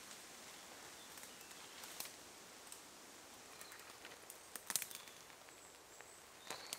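Tarp fabric rustling and crinkling in short scattered crackles as it is pulled and draped over its pole, over a faint steady hiss of rain and wind in the woods. The loudest crackle comes a little under five seconds in, with a few faint bird chirps.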